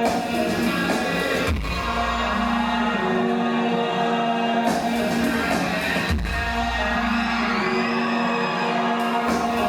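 Music from a live concert: held chords ring on, and a deep bass note comes in twice, about a second and a half in and again past the middle.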